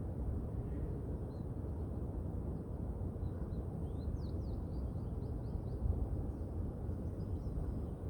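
Steady low rumble of wind and distant city traffic. About halfway through, a bird sings a quick run of short, high, falling notes.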